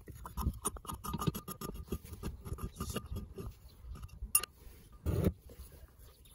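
Small metallic scraping and clicking as a pointed tool works at the screw of a rusty hand-drill gear-case cover. There is a sharp click about four seconds in, and a short, louder thump just after five seconds.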